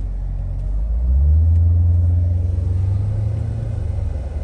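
Jeep Grand Cherokee Trackhawk's supercharged 6.2-litre V8 rumbling, heard from inside the cabin. About a second in it rises in pitch and loudness, holds for a couple of seconds, then eases back.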